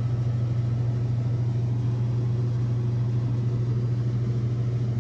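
Steady low drone of a moving vehicle heard from inside, running evenly without change.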